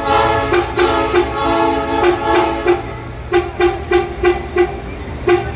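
Train horns sounding: several held blasts in the first half, then a quick run of short toots about three a second, over the steady hum of idling train machinery.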